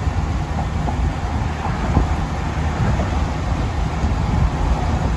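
Steady road and wind noise from a car driving at speed, mostly a low rumble.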